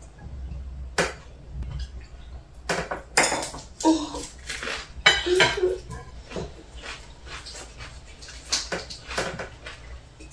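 Tableware clinking and knocking during a meal: chopsticks tapping against plates and bowls and a drinking glass set down, in short scattered clicks.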